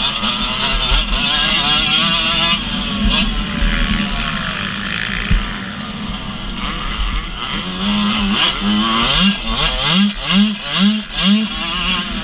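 Dirt bike engine heard from the rider's own bike, its pitch rising and falling with throttle and gear changes. Near the end comes a run of short revs, about two a second. Wind rumbles on the microphone throughout.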